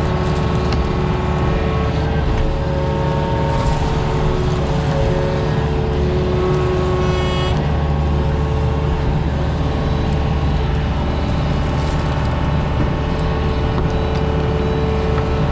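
Diesel engine of a mini excavator running steadily under working load with a steady hydraulic whine, and a couple of brief knocks a few seconds in and about seven seconds in.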